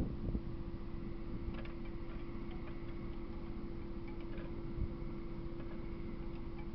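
Wind rumbling on the microphone under a steady electrical hum, with a few faint ticks.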